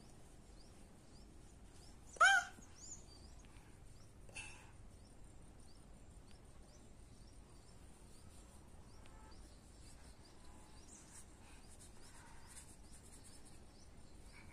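Faint high chirping repeating throughout, with one short, loud rising animal call about two seconds in and a single faint click a couple of seconds later.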